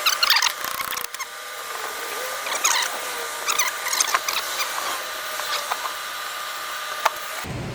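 Small metal clicks, taps and scratchy scrapes of starter motor parts being handled, loudest in the first second and again around the middle, with one sharp click near the end.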